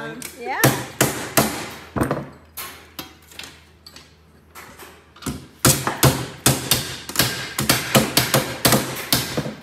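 Mallet blows on a thin sheet-metal body panel being beaten flat on a wooden workbench. A few scattered strikes come first, then a lull, then a fast run of several blows a second through the second half.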